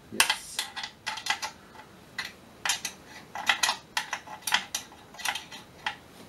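Small open-end wrench clinking on a clamp fastener and the steel strap of the gyro tube holder as it is worked loose in short turns: a run of sharp metallic clicks, about three a second and unevenly spaced.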